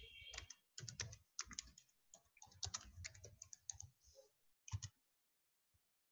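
Faint typing on a computer keyboard: irregular key clicks for about five seconds, stopping about a second before the end.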